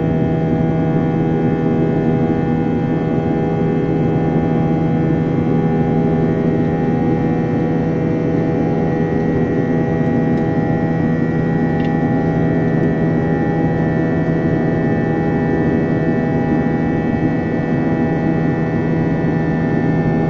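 Airbus A320 jet engines heard inside the cabin during the climb after take-off: a steady, loud drone with a hum of several steady tones. A high thin whine grows a little stronger about a third of the way in.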